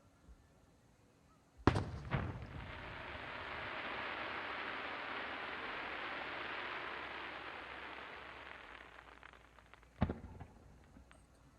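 Fireworks: an aerial shell bursts with a sharp bang, quickly followed by a second, then a long hiss swells and fades over several seconds before another bang near the end.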